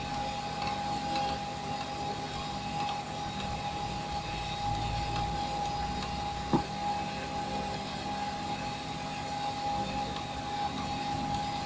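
Steady machine noise in an aircraft cockpit: a constant hum with a high whine, and one sharp click about six and a half seconds in.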